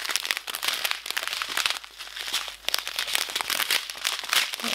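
Small clear plastic bags of diamond painting drills crinkling and crackling as they are handled and turned in the hands.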